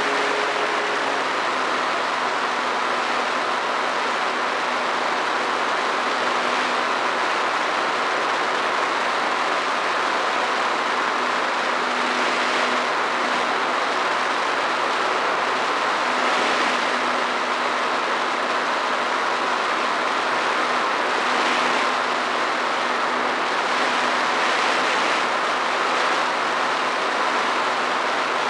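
Drone's motors and propellers running in flight, heard from the drone itself: a steady whir with a rushing hiss and a faint constant hum.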